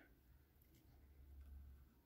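Near silence: room tone, with a faint low rumble that builds in the second half.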